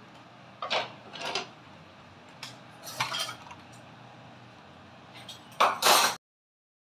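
Metal utensils clinking and scraping against cookware in several short, separate strokes, then the sound cuts off suddenly near the end.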